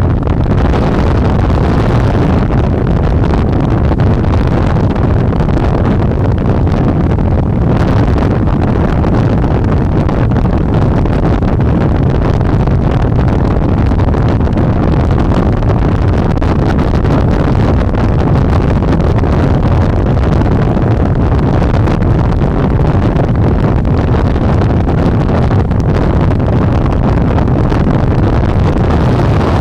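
Steady, loud wind buffeting the microphone while riding an electric motorbike at speed.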